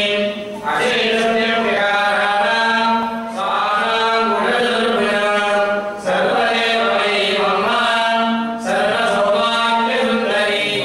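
Hindu priests chanting puja mantras into microphones, in long melodic phrases of about three seconds each with short breaks between them, over a steady low hum.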